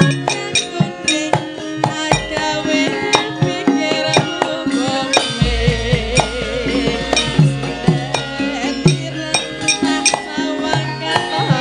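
Javanese gamelan playing lively, with frequent kendhang hand-drum strokes and metallophone notes, and a female sinden singing over it into a microphone. A deep low note sounds about five seconds in and rings on beneath the ensemble.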